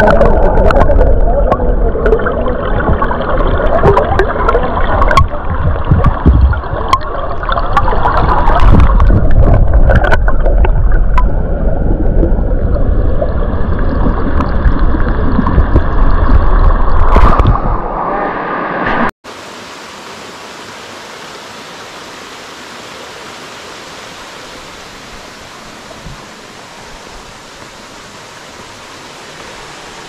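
Rushing stream water, loud, with a heavy low rumble. About two-thirds of the way through it cuts off abruptly to a quieter, even rush of water.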